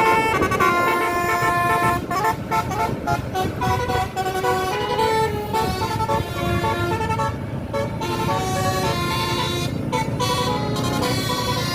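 Basuri telolet multi-tone air horn on a tour bus playing a quick melody of stepped horn notes, over a low rumble.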